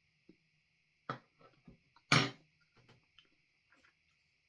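Mouth noises from tasting a hot sauce: scattered lip smacks and mouth clicks, with one short, loud breathy vocal burst about two seconds in and a smaller one about a second in.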